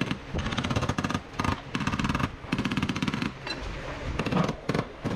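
Bursts of rapid mechanical hammering, each lasting under a second with short gaps between, from body-repair work on a car panel.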